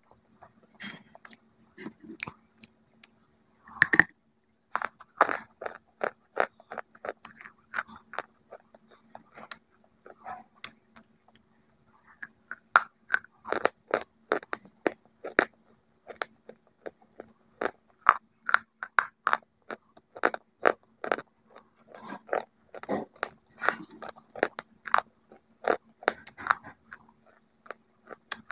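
Close-up crunchy chewing of a brittle white bar: sharp, irregular crunches several times a second, with a faint steady hum underneath.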